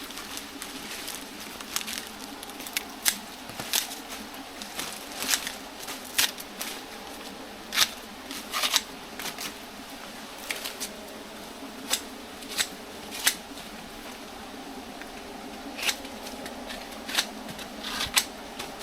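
Scissors snipping through banana leaves, a series of crisp, irregularly spaced cuts roughly one a second.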